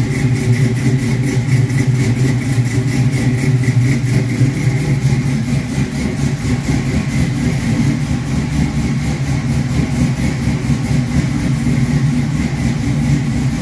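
Car engine idling steadily, with a steady high tone above the low engine hum.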